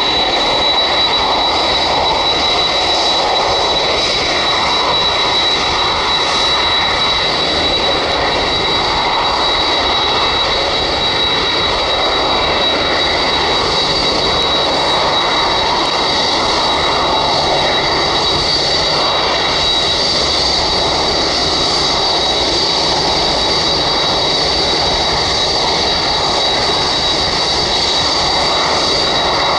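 Boeing 787-8 Dreamliner's Rolls-Royce Trent 1000 turbofans running at taxi power: a steady jet rush with a high fan whine, and a second, slightly higher whine joining about halfway through.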